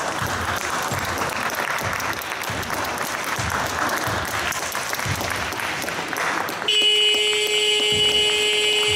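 Spectators applauding in a sports hall, then about two-thirds of the way through a scoreboard buzzer cuts in with a loud, steady electronic tone: the end-of-game buzzer.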